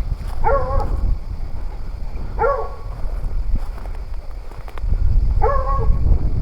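Hunting dog barking at bay: three short, pitched barks about two to three seconds apart, the sign of the dogs holding a cornered pig. A steady low rumble runs underneath.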